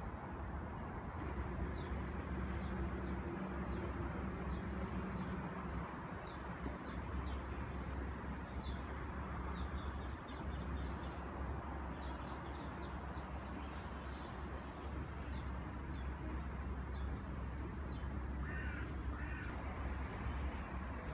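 Outdoor ambience of small birds chirping, many short high chirps scattered all through over a steady low background rumble. A short cluster of harsher calls comes near the end.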